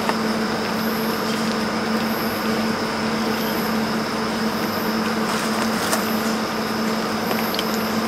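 Hugos portable mini air conditioner running: a steady rush of fan air with a constant low hum.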